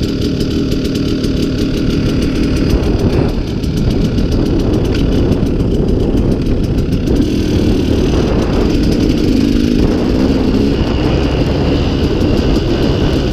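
KTM 200 XC-W single-cylinder two-stroke dirt bike engine running while riding, its pitch rising and falling with the throttle, over heavy wind rumble on the microphone.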